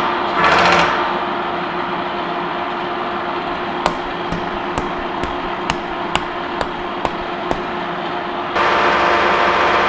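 A Lucas horizontal boring mill running steadily, with a traverse motor that cuts out just under a second in and starts again near the end, while the plate is being indicated. In the quieter stretch between, there are about nine light, sharp metal taps, roughly two a second.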